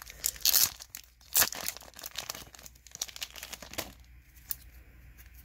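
Plastic card packaging crinkling and rustling in irregular bursts as trading cards are handled, loudest in the first second and a half, easing off after about four seconds, with a single click near the end.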